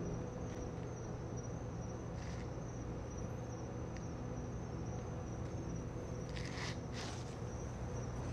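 Crickets chirping steadily over a low, steady hum. A few brief rustles come in, the most prominent about six and a half to seven seconds in.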